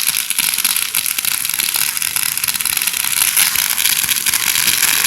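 Fireworks crackling densely: a continuous hiss of rapid tiny pops, with no big single bangs.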